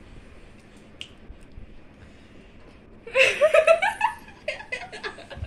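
A baby laughing in short, high giggles, starting about three seconds in after a quiet stretch.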